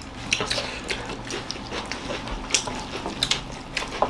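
Eating rice, dal and chicken curry by hand from metal plates: fingers mixing and scooping the rice, with chewing and mouth smacks, heard as a run of short, irregular clicks and smacks.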